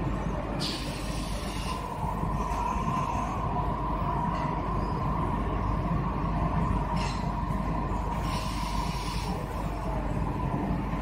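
Steady hum and rumble of an automated pouch-cell battery module assembly line, with a constant mid-pitched tone and about four short hissing bursts spread through.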